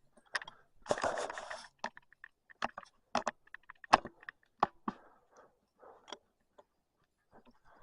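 Footsteps crunching in deep snow: irregular light crunches and clicks, with a longer scrape about a second in and softer rustling later on.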